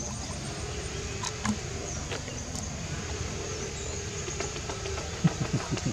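Steady low outdoor background rumble, with a few scattered clicks and a quick run of sharp soft taps near the end.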